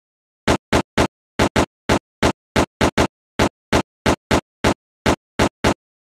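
Sound effect for on-screen text: short, sharp bursts, one for each letter as it appears, about three a second at an uneven pace. The run stops just before the end.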